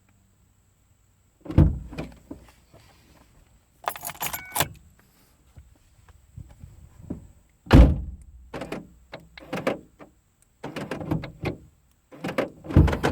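Handling in and around a Ford Focus: car doors shutting with heavy thuds, the loudest about 1.5 and 8 seconds in, and a set of car keys jingling about 4 seconds in. Further knocks and clicks follow near the end, part of the door, seat-belt and ignition-key sequence used to program a replacement key remote.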